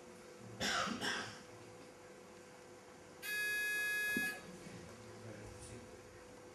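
An electronic beep from the weightlifting attempt clock: one steady, high tone lasting about a second, the timer's warning signal while the lifter is still setting up. Just before it come two short hisses about half a second apart.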